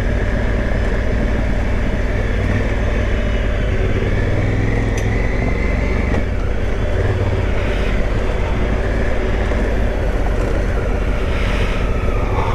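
Big adventure motorcycle's engine running steadily while riding a dirt trail, with tyre and trail noise underneath.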